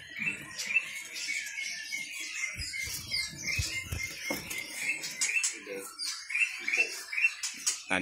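Caged songbirds chirping: a string of short, high chirps repeating throughout, with faint voices in the background.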